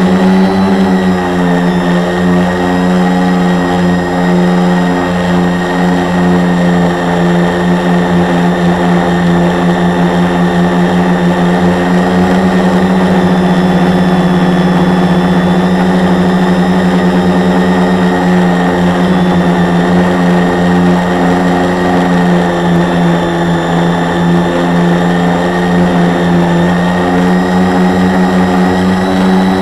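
A 450-size quadcopter's four Multistar 2212 920kv brushless motors spinning 10x4.5 propellers in flight, heard close up from a camera mounted on the frame. It is a loud, steady drone with a strong low hum that wavers slightly in pitch.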